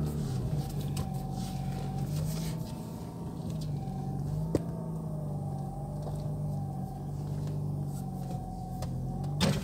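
Mazda RX-8's rotary engine droning steadily, heard from inside the cabin, its pitch rising and falling slightly as the car drives. A single short click about four and a half seconds in.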